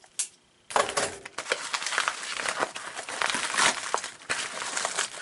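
Mailed package being opened by hand: the packaging crinkles and crackles continuously, starting under a second in.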